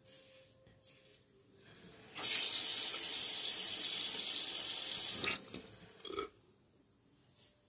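Bathroom sink tap running for about three seconds, starting about two seconds in and shutting off sharply, as the slant razor is rinsed between passes. A brief knock follows about a second later.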